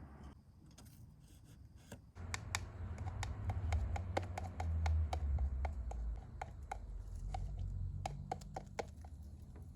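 Irregular light clicks and taps, several a second, over a low hum, starting about two seconds in; some taps ring briefly.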